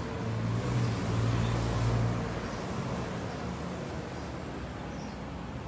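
A motor vehicle engine runs nearby with a steady low hum, loudest over the first two seconds and then fading into background traffic noise.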